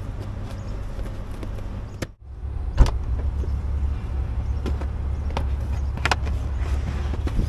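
A car running with a steady low rumble, broken by a few sharp clicks and knocks. The rumble drops out briefly about two seconds in and comes back louder.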